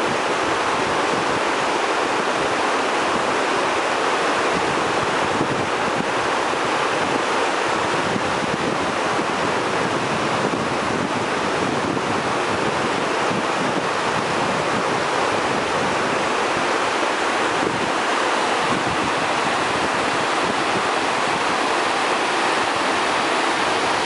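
Steady rushing of a river in spate: fast, muddy floodwater churning over its bed and banks, an even, unbroken wash of water noise.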